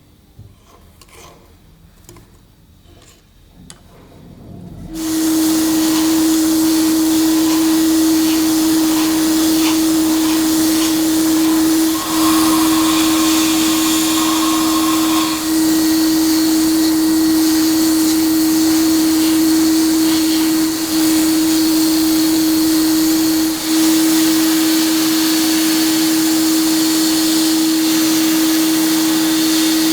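A few faint clicks, then about five seconds in an electric power tool starts up and runs steadily with a strong, even hum and a hiss. It eases off briefly a few times.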